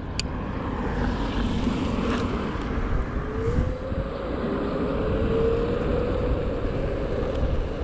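Xiaomi Mi 1S electric scooter under way: steady wind and tyre noise on asphalt, with the hub motor's whine rising in pitch about three seconds in as the scooter speeds up. A short click just after the start.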